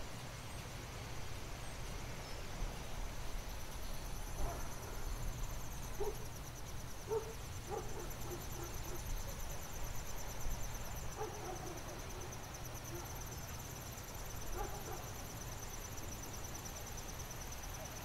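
Night insects trilling steadily in a high, fast-pulsing drone over a low wind rumble. Short, faint distant dog barks come in small clusters through the middle.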